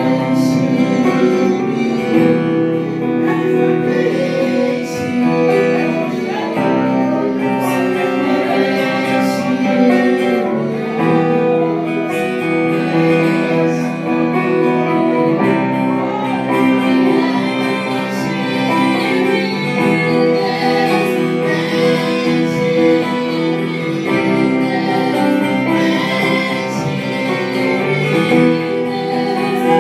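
Live worship song: two women's voices singing over keyboard accompaniment with held chords.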